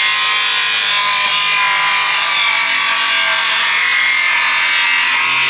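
Electric power saw cutting through a laminate worktop, running steadily under load with a high whine.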